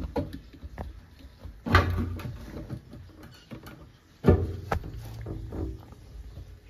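Two sudden knocks, about two and a half seconds apart, with rattling in between: parts being handled and pried at while someone struggles to work a part loose.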